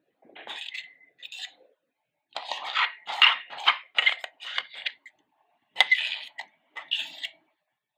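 Metal spoon scraping wet banana-peel paste out of a stainless steel mixer-grinder jar: a run of short scrapes in several groups, with a sharper knock about six seconds in.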